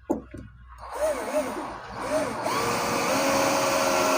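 Makita 18-volt cordless drill driver on its low-speed, high-torque setting, driving a screw into soft wood without a pilot hole. A few short trigger blips, then the motor whine wavers up and down before running steadily under load.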